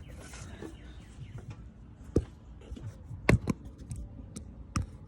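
A few sharp, irregularly spaced taps and knocks, the loudest about three seconds in.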